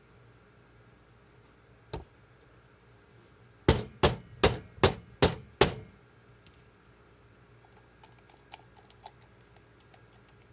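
One knock, then a quick even run of six loud, sharp knocks, about two and a half a second, as thick cooked hot-process soap batter is knocked from the slow-cooker crock into the mould. A few faint light clicks follow near the end.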